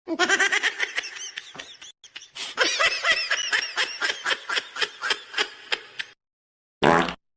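Cartoonish high-pitched laughing sound effect, a snickering laugh in quick pulses about four a second that runs for about six seconds. A short separate burst of sound follows near the end.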